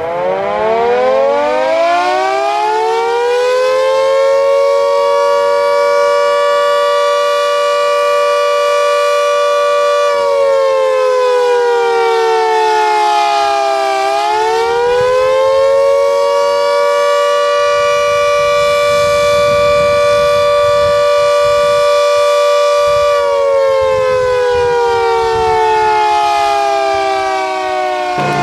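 Restored wartime air raid siren winding up into a loud, steady wail. About ten seconds in its pitch sinks, then it winds back up and holds again, and near the end it falls away.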